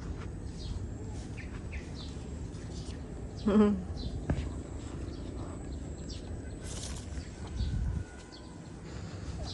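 Small birds chirping on and off, short high calls scattered throughout over a steady low background hum. About three and a half seconds in, a brief loud voice cuts in, and a low rumble follows near the end.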